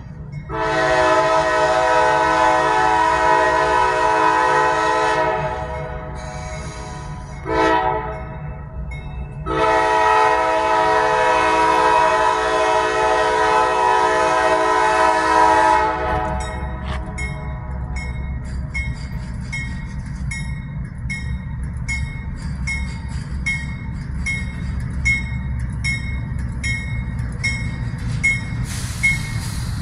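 Diesel freight locomotive's air horn sounding a long blast, a short one and another long blast as the train approaches. After the horn stops, the locomotive's engine and rolling wheels rumble louder as it draws near, with a quick regular ticking over it.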